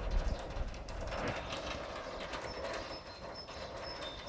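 Meltwater from melting roof snow pattering and trickling down a metal drainpipe, a fast irregular stream of drips and taps.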